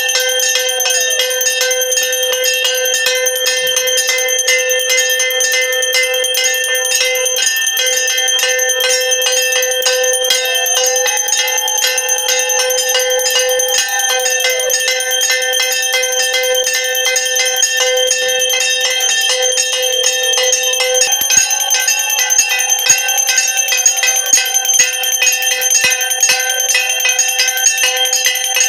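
Puja bell ringing rapidly and without a break during aarti. A lower, held tone swells in and falls away several times over the ringing.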